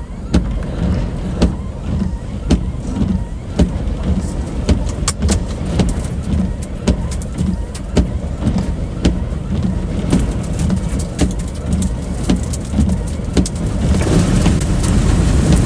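Road and engine rumble inside a moving vehicle, with sharp knocks about once a second. A rushing wind noise builds near the end.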